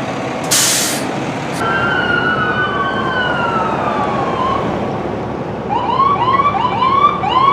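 Emergency vehicle siren: a short loud burst of noise about half a second in, then siren tones falling slowly in pitch, then from about six seconds in a fast yelp of rising sweeps, about two a second, over a vehicle's rumble.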